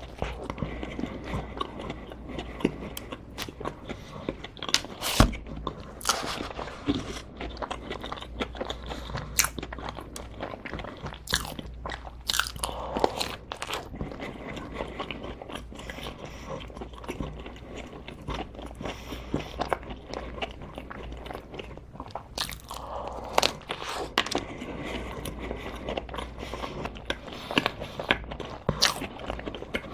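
A person biting and chewing crunchy food close to the microphone, with many irregular sharp crunches.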